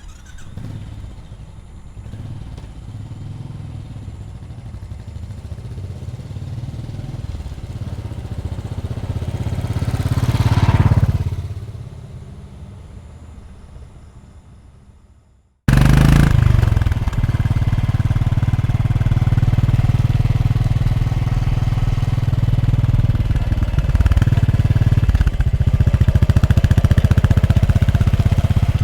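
Royal Enfield Bullet single-cylinder motorcycle approaching and passing by, loudest about ten seconds in, then fading away. After a sudden cut, the engine runs steadily close up.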